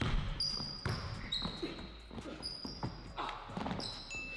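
A basketball dribbled on a hardwood gym floor, a series of bounces about every half second, with short high squeaks of sneakers on the court as the players move.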